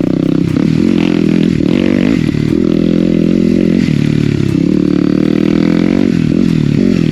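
Yamaha WR250R's single-cylinder four-stroke engine running loud through a GPR aftermarket exhaust with the baffles removed, under way on a ride. The revs rise and fall several times with the throttle and gear changes.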